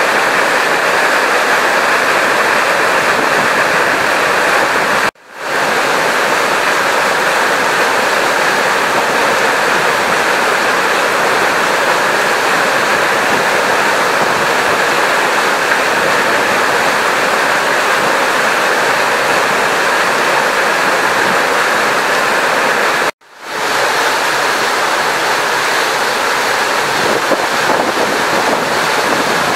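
Steady, loud rushing water noise, with no voice or engine in it. It cuts out abruptly twice, about five seconds in and near twenty-three seconds, and swells back each time.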